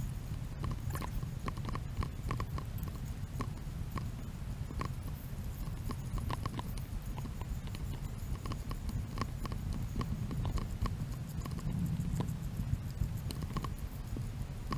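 Footsteps of people walking on an asphalt path: a quick, uneven run of shoe taps and scuffs over a steady low rumble.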